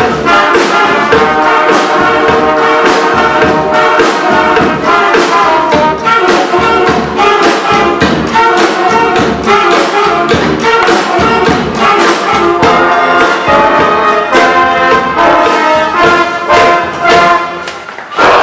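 Brass-and-percussion street band playing a fast, loud tune, horns such as trumpets and trombones over a steady drum beat. The level briefly drops shortly before the end, then the band closes on a final loud hit.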